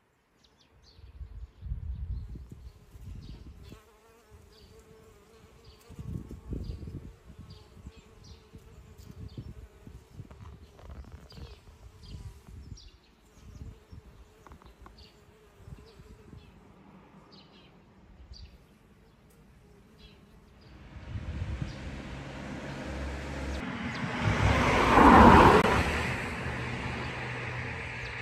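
Insects buzzing steadily among the flowering plants, with short bird chirps repeating over it. In the last seconds a much louder rushing sound swells up, peaks, then eases off.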